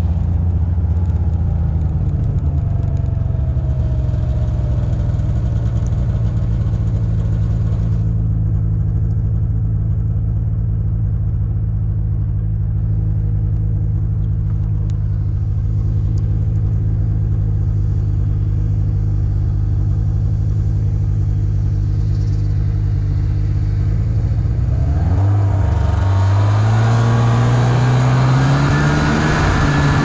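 Snowmobile engine running at a steady cruising speed, then revving up about 25 seconds in, its pitch climbing as it accelerates.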